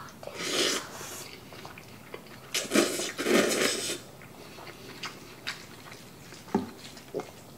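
A person slurping up cold buckwheat noodles in two long, noisy pulls, one about half a second in and a louder one around three seconds in. Near the end come a few light clicks of chopsticks against a steel bowl.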